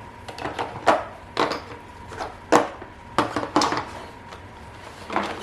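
Metal bearing-cone driver discs clinking and clattering against each other and their hard plastic case as they are handled, in about ten irregular sharp knocks.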